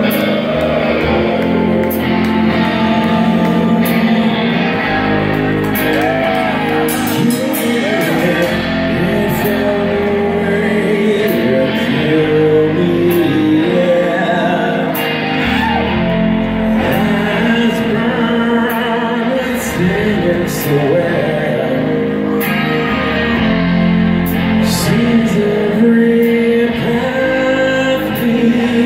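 Live rock band playing a slow heavy song: electric guitars, bass and drums with cymbal hits, and a male voice singing over them.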